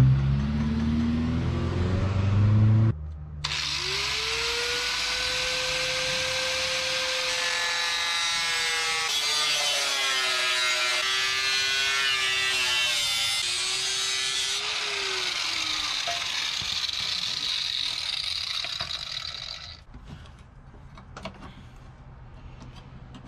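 An angle grinder cutting a patch panel out of sheet steel: its motor whine sags lower as the wheel bites into the metal, then slides down as it spins down, and the cutting stops about three seconds before the end, leaving a few light taps. Before that, for the first three seconds, a small vehicle's engine revs as it drives off.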